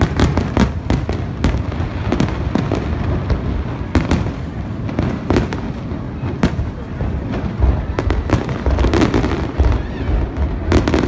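Fireworks display: aerial shells bursting one after another at irregular intervals, a dozen or more sharp bangs over a continuous low rumble of overlapping explosions.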